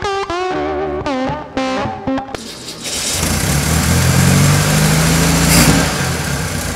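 Electric guitar music, then about two seconds in the air-cooled flat-four engine of a freshly restored 1968 Volkswagen Beetle roars to life. It runs loud and revs up, rising in pitch and holding, then eases off near the end.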